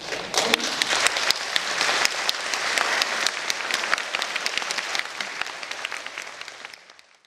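Audience applauding, a dense clatter of many hands clapping; it fades out near the end.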